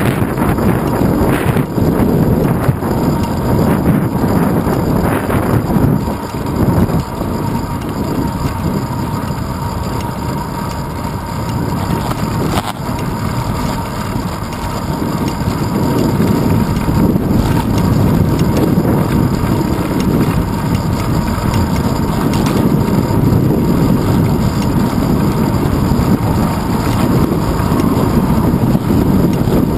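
Wind buffeting the microphone of a handlebar-mounted GoPro Hero 2 on a moving bicycle: a steady low rumble that eases for a while in the middle and then builds again.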